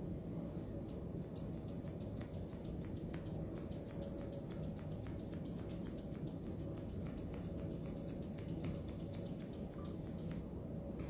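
Grooming scissors snipping repeatedly as they trim the hair on a dog's muzzle, a few crisp snips each second, over a steady low hum.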